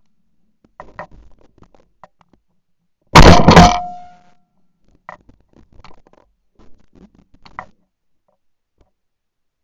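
A single shotgun shot about three seconds in, very loud and dying away over about a second. Faint scattered clicks and knocks come before and after it.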